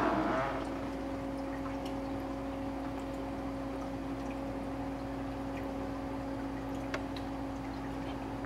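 Reef aquarium running: water trickling and splashing under a steady low pump hum, with a brief louder noise right at the start.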